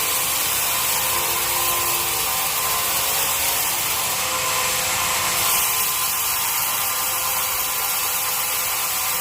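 Sawmill bandsaw cutting through teak wood, a steady, unbroken rushing whine.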